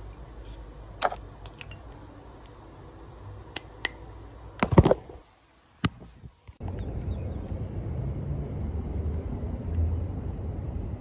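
Handling noises: scattered clicks and knocks, with a louder clatter about five seconds in, then a brief silence. From about six and a half seconds a steady low outdoor rumble takes over.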